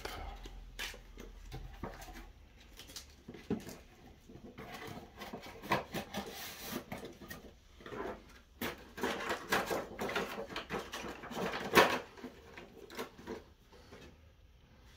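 Plastic action figure and its packaging being handled: irregular clicks, taps and rustling, with one sharper snap near the end before it falls quiet.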